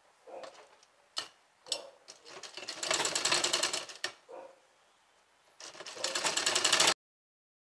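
Sewing machine stitching fabric in two short runs of rapid needle strokes, a couple of clicks first, sewing a single line of stitching along a fold; the sound cuts off abruptly.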